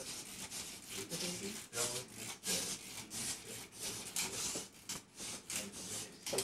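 Short rustling, rubbing strokes, several a second, as a small object is picked at and worked in the hands.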